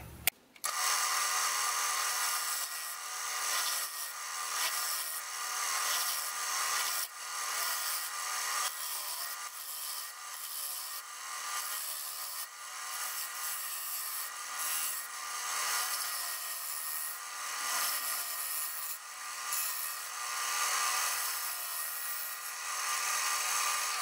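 Wood lathe running while a gouge hollows the inside of a spinning blank of scrap 2x8 softwood construction lumber: a steady, uneven scraping cut with a thin steady tone from the lathe underneath. The cutting starts about half a second in.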